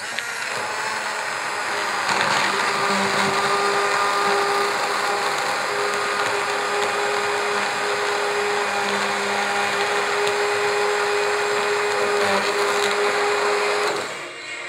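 Hand-held immersion blender running at a steady pitch in a stainless steel pot, blending an oat mixture into oat milk; it stops near the end.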